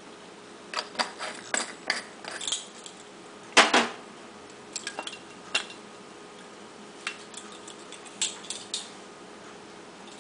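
Scattered small clicks and knocks as spice jars and a plastic measuring spoon are handled on a kitchen counter, with one louder knock about three and a half seconds in.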